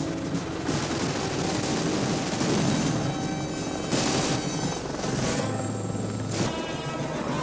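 Helicopter rotor and turbine noise mixed with a film score, one dense continuous soundtrack with a brief louder surge about four seconds in.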